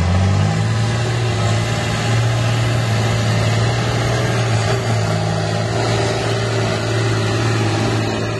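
John Deere 8410 tractor's six-cylinder diesel engine working hard under load as it pulls a loaded trailer up a muddy hill track. The engine note climbs briefly near the start, then holds steady.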